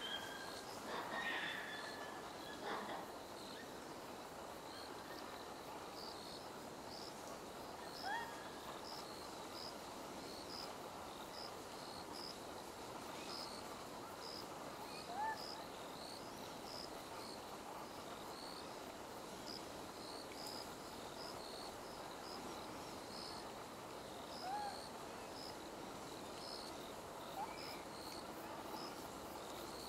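Autumn insects chirping in an even, steady rhythm over faint outdoor hiss. A few short, rising coo calls from Japanese macaques come at intervals.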